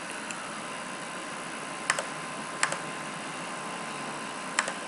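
A few sharp clicks of a computer mouse and keyboard as text is copied and pasted: one about two seconds in, another soon after, and a pair near the end, over a steady background hiss.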